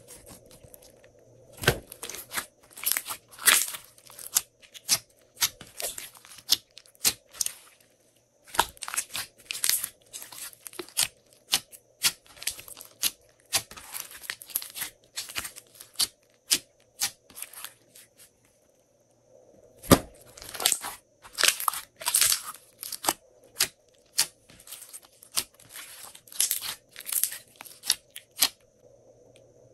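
Hands kneading and folding glossy slime: rapid runs of sharp wet pops, clicks and crackles, with two brief lulls.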